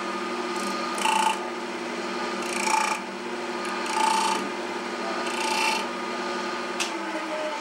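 Wood lathe running with a steady motor hum while a turning tool is pressed into the face of the spinning wooden plate four times, each cut a short scraping screech as it scores a concentric line. The hum dies away near the end.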